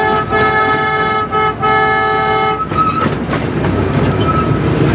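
Horn of a miniature-gauge diesel streamliner locomotive sounding a chord of several tones. The horn breaks twice briefly and cuts off about two and a half seconds in, over the steady running noise of the moving train.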